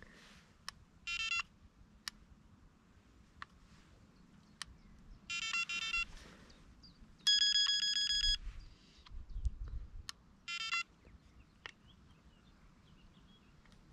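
Battery-powered electronic carp bite alarm sounding four separate beeps as the rod and line are set on it. Three are short, and one, a little after the middle, is a steady tone about a second long at a different pitch. Faint clicks from handling the alarm fall between the beeps.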